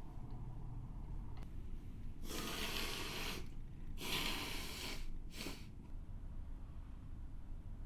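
Close-miked human breathing: two long noisy breaths, about two and four seconds in, then a short one just after.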